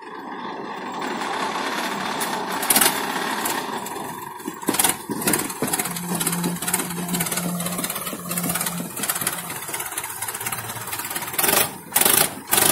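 Tractor diesel engines running hard under heavy load as two tractors pull against each other in a tug-of-war. The noise builds over the first couple of seconds and then holds steady. Near the end comes a run of loud, sharp bursts, about two a second.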